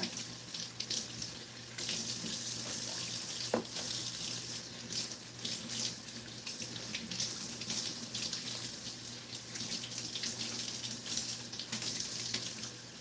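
Kitchen faucet running in a steady stream while mustard green leaves are rinsed under it by hand, water splashing off the leaves into the sink basin. A brief click about three and a half seconds in.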